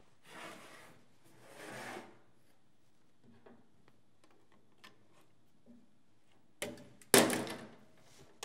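Molded plastic parts of a General Electric Spectra RMS circuit breaker being worked loose by hand. Two rubbing scrapes come first, then a few light ticks, then near the end a sharp click and a louder scrape that fades.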